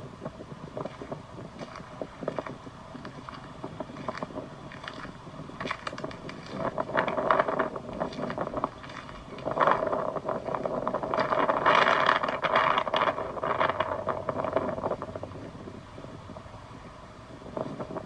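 Strong wind gusting over the microphone, a rough rushing noise that swells in two long gusts, one about a third of the way in and one from about halfway until near the end, then eases.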